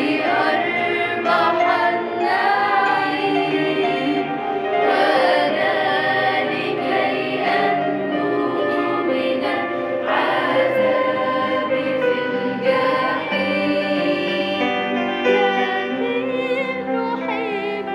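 Choir of girls singing an Arabic Christian hymn together, several voices at once.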